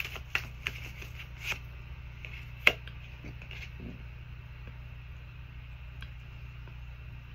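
Tarot cards being handled: a run of quick card flicks and snaps in the first second and a half, then one sharp card snap a little under three seconds in. A steady low hum runs beneath.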